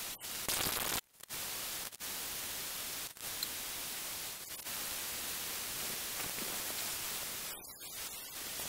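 Steady airy hiss of a homemade room cooler's fan running, cut off abruptly for a moment several times, at about one, two and three seconds in.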